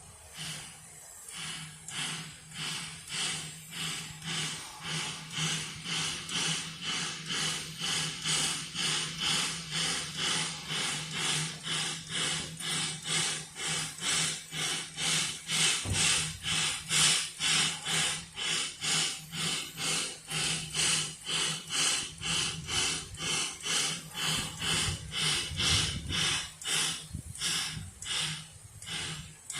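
Puffing Billy narrow-gauge steam locomotive working a train, its exhaust chuffing in a fast, even beat. The chuffs grow louder to their loudest about halfway through, then ease off slightly.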